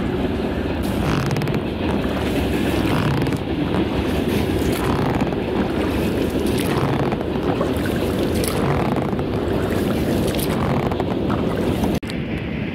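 Steady wind noise on the microphone from a boat moving across open water, with a faint regular swish about every two seconds. The sound changes abruptly near the end.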